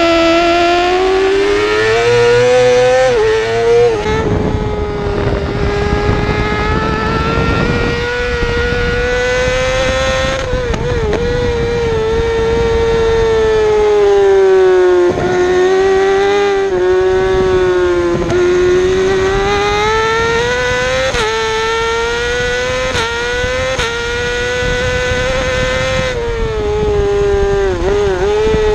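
Yamaha YZF-R6's 600 cc inline-four engine run high in the revs under race throttle. Its pitch swells and sags through the corners, with several brief dips. Wind rushes over the bike-mounted microphone.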